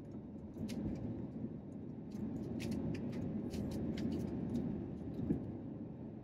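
Jet airliner cabin noise during takeoff: a steady deep rumble from the engines and runway. Many light rattles and clicks from the cabin come through the middle of it.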